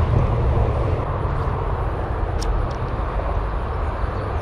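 Steady rumble of wind on the microphone mixed with highway traffic noise.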